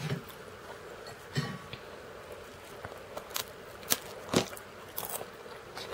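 Crackers bitten and chewed close to the microphone: a handful of short, sharp crunches, the loudest about four seconds in, over a faint steady hum.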